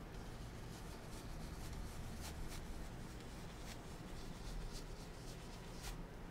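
Blender brush stroking over a wet oil-painted canvas: faint, irregular, scratchy brush strokes over a steady low hum.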